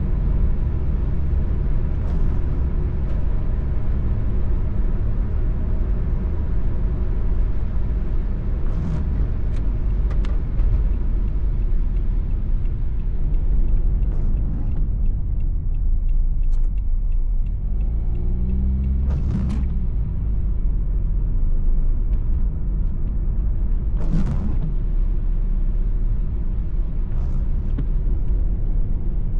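Car cabin noise while driving on wet roads: steady low engine and tyre rumble, with a few short swishes, the loudest about two-thirds of the way through.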